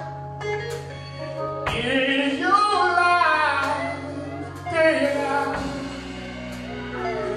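Live gospel singing with keyboard accompaniment: a voice slides through a long, drawn-out sung phrase over held keyboard notes, loudest between about two and five seconds in.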